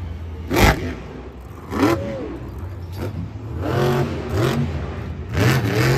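Monster truck engine revving in three swells over a steady low drone.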